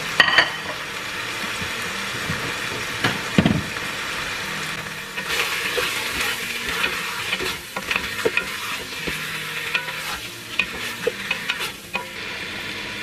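Raw chicken pieces sizzling in hot oil with onions and garlic in a stainless steel stockpot, stirred with a wooden spoon that scrapes and clicks against the pot. This is the chicken browning in the sauté. A few louder sharp knocks come near the start and about three seconds in.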